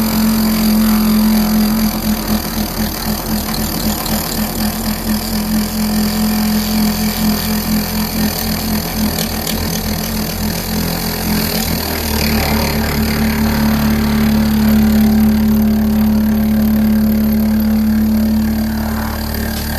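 CNC router spindle running with a fly cutter, taking a very light finishing pass of about half a thousandth of an inch. A strong steady hum that pulses and wavers for the first half, then changes and evens out about twelve seconds in.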